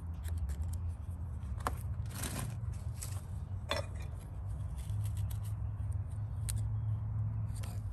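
Short scrapes and clicks of a knife working the bark off a fruit-tree branch during air-layering, a few separate strokes over a steady low hum.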